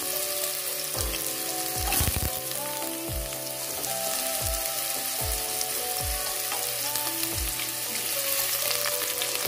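Radish pieces sizzling steadily as they fry in hot oil in a steel pan, stirred with a spatula near the end. Soft background music with stepped notes plays underneath.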